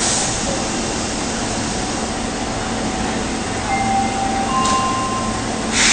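Steady whooshing noise of an Osaka subway 22 series train standing at an underground platform, with a few faint short tones about four to five seconds in. A sudden louder hiss starts near the end.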